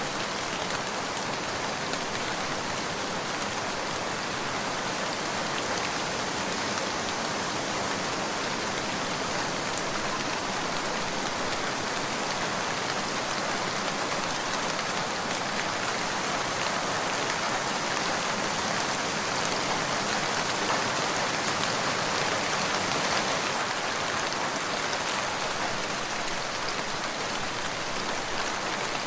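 Steady rain falling, an even hiss of drops on a surface with no let-up.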